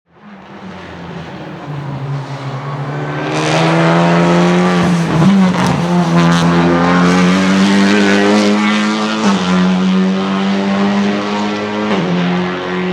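Honda Civic Type R TCR race car's 2-litre turbocharged four-cylinder engine accelerating hard, growing louder over the first few seconds. The engine note climbs and drops sharply at each sequential-gearbox upshift, three times.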